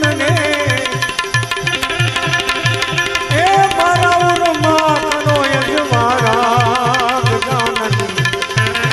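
Instrumental interlude of Indian devotional music. A tabla-like hand drum keeps a steady beat of about two to three strokes a second under a melody of held notes that slide and waver in pitch.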